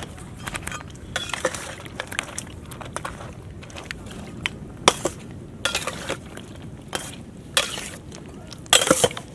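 Flat steel spatula clinking and scraping against a steel bowl as it turns fried malpua, in irregular strikes and short scrapes, loudest in a quick cluster near the end.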